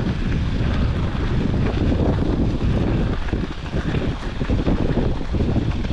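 Wind buffeting the microphone of a camera riding along on a moving bicycle: a steady low rumble.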